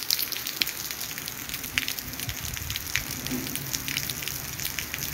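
Light rain falling steadily on a wet paved street, an even hiss with many close drops ticking sharply.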